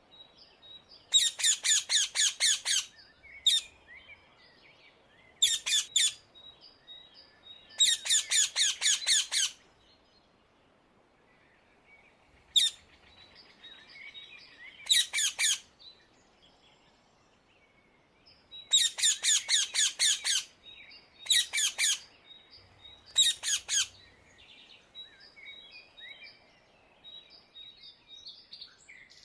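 Rose-ringed (Indian ringneck) parakeet calling: about nine loud bursts of rapid, shrill repeated calls, each burst a second or two long, with quieter gaps between. Faint short chirps of smaller birds sound in the gaps.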